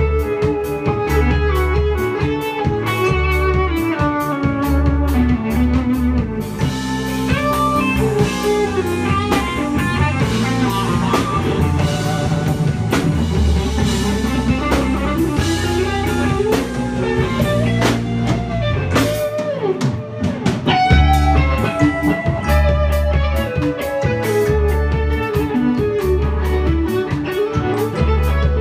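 Live band playing an instrumental on electric guitar, bass, drum kit and keyboard, with a lead line of gliding, bending notes. About two-thirds of the way through, the bass and drums drop out for a moment and come back in on a loud hit.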